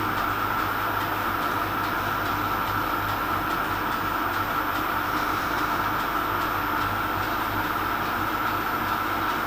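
Metal lathe running steadily at speed, spinning a 1/4 inch stainless steel rod that is being hand-lapped with diamond paste in an aluminium lapping block. It gives an even hum with a steady whine above it.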